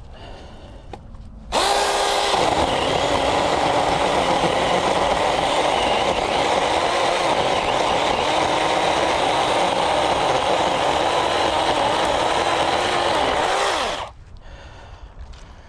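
A small 6-inch chainsaw cutting through a downed tree trunk. It starts abruptly about a second and a half in, runs steadily for about twelve seconds with its pitch dipping and wavering as the chain bites into the wood, then stops near the end.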